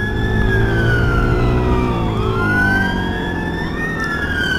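Two police car sirens wailing together, their slow rising and falling tones overlapping, over the low hum of traffic engines.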